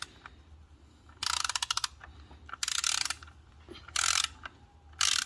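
Socket ratchet wrench clicking in four short bursts of rapid clicks, each stroke a half-second back-swing, as the ignition coil hold-down bolts are run down snug by hand.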